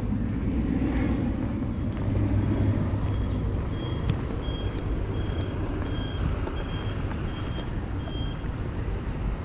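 A steady low rumble of street traffic, with a short high electronic beep repeating about twice a second for several seconds in the middle.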